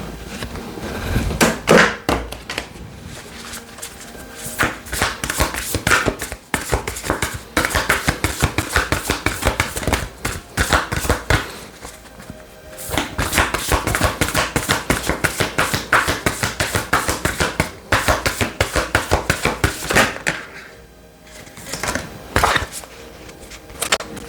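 A deck of oracle cards being shuffled by hand: long runs of rapid, crisp card clicks with brief pauses. Soft background music runs under it.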